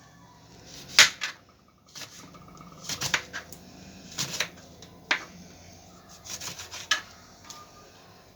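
A knife and kitchen utensils knocking and clinking against a cutting board and dishes while oranges are cut open. The knocks come irregularly: one sharp knock about a second in, then small clusters of clicks around three, four and a half, and six to seven seconds.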